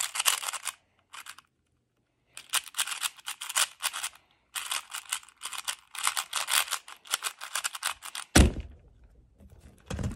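Rapid plastic clicking of a MoYu AoSu 4x4 speedcube being turned during a timed solve, in bursts with short pauses between them. About eight seconds in there is one loud thump as the cube is put down and the timer stopped.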